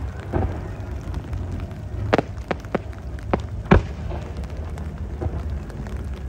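Fireworks going off: a series of irregular bangs and pops, the two loudest about two and almost four seconds in, over a steady low rumble.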